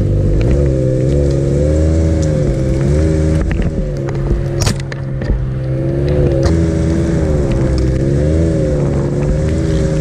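Ski-Doo Expedition SE 900 Turbo snowmobile's turbocharged three-cylinder four-stroke engine running under way, its pitch rising and falling over and over as the throttle is worked. A sharp knock sounds once, about four and a half seconds in.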